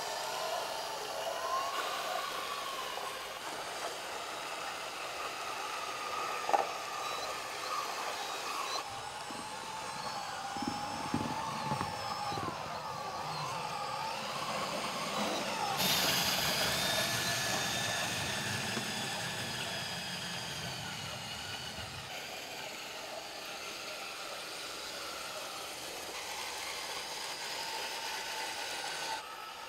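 1/16-scale RC John Deere 9620RX quad-track model tractor driving, its motors and drivetrain giving a whine that wavers up and down in pitch. The sound grows louder and fuller through the middle, with a single sharp click about six seconds in.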